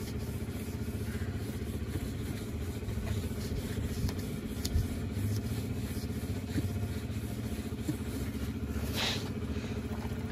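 A steady low mechanical hum, like an idling engine, with a brief rustling hiss about nine seconds in.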